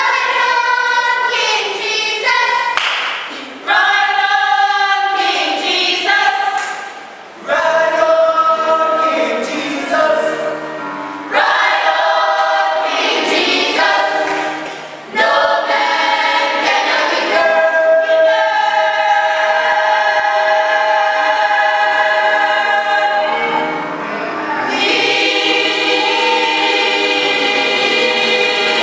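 A choir singing a gospel hymn in phrases of a few seconds, ending on long held chords.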